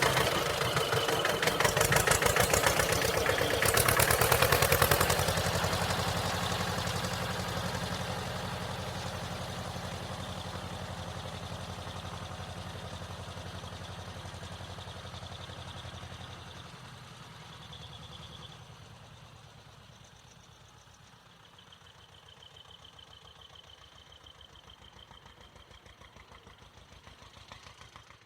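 Tractor engine revving as it pulls away, then driving off into the distance, its steady chugging fading away over the following twenty-odd seconds.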